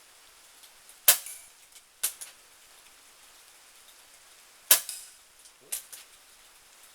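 Two shots from a .22 Benjamin Marauder pre-charged pneumatic air pistol, sharp cracks about three and a half seconds apart, each followed about a second later by a fainter click.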